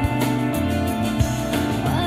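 Recorded music, a song with guitar, playing from CD through a custom car audio system (Pioneer head unit and processor, Technics tweeters, FaitalPRO midrange and midbass drivers, LUXMAN amplifiers), heard inside the car's cabin.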